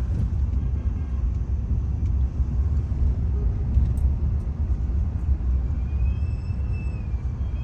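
Steady low rumble of a moving car's road and engine noise, heard from inside the vehicle. A faint high tone comes in about six seconds in.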